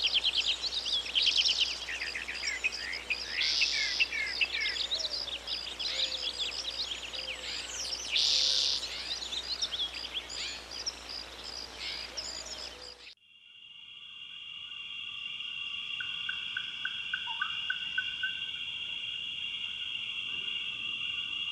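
Daytime birds chirping, many short quick calls, which cut off suddenly about two-thirds through. Steady chirring of night crickets follows, with a fainter trilling insect below it.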